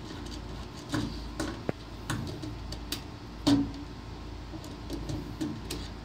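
A screwdriver backing a screw out of a dryer's terminal block: scattered small metallic clicks and taps, with one louder knock a little past halfway through.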